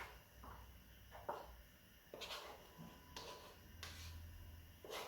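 Faint kitchen handling sounds: a few soft, brief scrapes and taps, about five spread over a few seconds, as dry baking ingredients are handled at the bowl and sieve.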